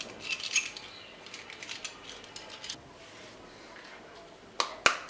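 Small plastic toy pieces being handled: a few light clicks and rattles in the first second, then two sharp clicks close together near the end.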